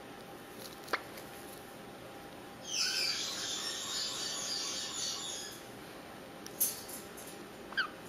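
Yellow-shouldered Amazon parrot chick giving a hoarse, hissing call lasting about three seconds. A few short chirps come before and after it.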